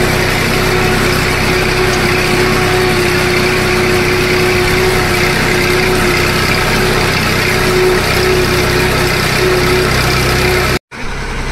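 Massey Ferguson 1035 DI tractor's three-cylinder diesel engine running steadily while pulling a spring-tine cultivator, a constant drone with a steady whine over it. The sound drops out for an instant near the end, then the engine resumes.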